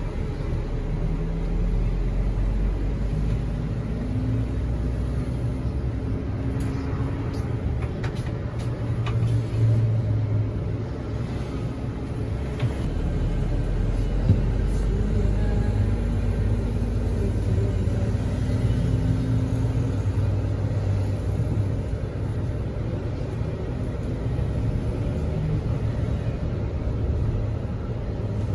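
Mercedes-Benz O500RS 1836 bus underway: a steady low rumble of diesel engine and road noise, with the engine note rising and falling a few times. A single short knock comes about halfway through.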